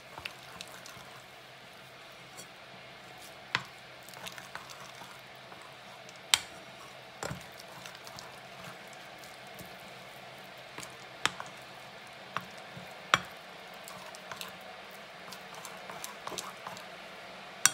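Thick batter being stirred in a bowl: a wet, squishy mixing sound with occasional sharp clicks of the utensil against the bowl.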